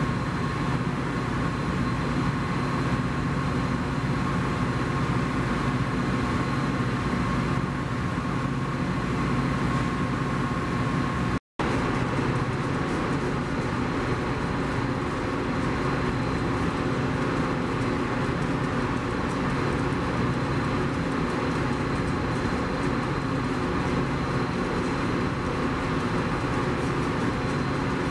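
Union Pacific EMD GP-series ('Geep') diesel-electric locomotive's diesel engine running steadily as it switches through the station tracks. The sound breaks off for an instant about a third of the way through, then carries on unchanged.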